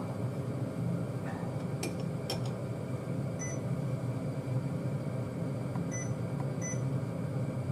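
Induction cooktop heating a saucepan of stew, giving a steady electrical hum with its cooling fan, and a couple of faint clicks about two seconds in.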